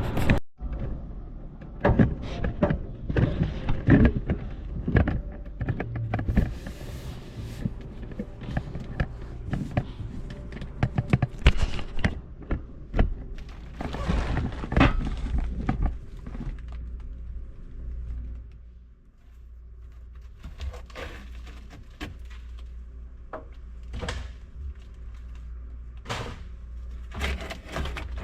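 Irregular clunks, thuds and scraping from old car interior parts and junk being pulled out and tossed, over a steady low rumble.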